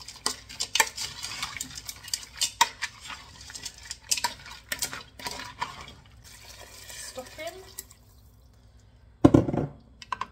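A black plastic spoon stirring chopped vegetables, peas and bacon in a pressure-cooker pot, with quick clicks and scrapes against the pot's sides. The stirring stops about six seconds in, and a loud low thump comes about nine seconds in.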